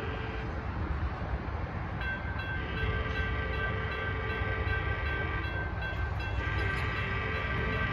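Approaching Altamont Commuter Express train's horn sounding two long chord blasts for the crossing, the first starting about two seconds in. At about the same time the crossing's bell starts ringing in a steady rhythm as the signals activate.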